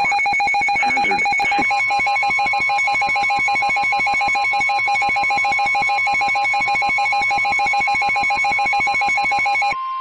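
Emergency Alert System attention signal from NOAA Weather Radio: a loud, steady electronic alert tone of two pitches at once, with a higher tone joining about two seconds in; near the end only that tone is left. It announces the severe thunderstorm warning that follows.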